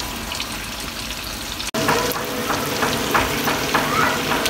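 Spiced beef curry with potatoes frying and sizzling in oil in a non-stick wok. A brief dropout comes about two seconds in; after it the sizzling is louder and a spatula stirs and scrapes through the meat against the pan in quick repeated strokes.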